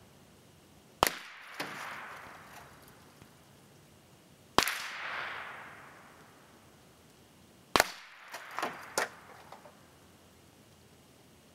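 Three single shots from a Remington Model 597 semi-automatic .22 Long Rifle, about three seconds apart, each followed by a fading echo. A few fainter sharp cracks follow the first and third shots.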